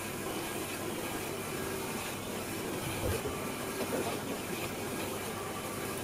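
Xiaomi Mijia Mi robot vacuum running a cleaning pass over a wooden floor, its suction fan and brushes giving a steady hum and hiss, with a couple of light knocks about three and four seconds in.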